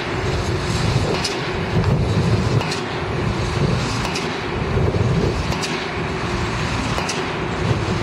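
Heavy construction machinery running steadily: a continuous engine drone with a low, fluctuating rumble and a few faint clicks every couple of seconds.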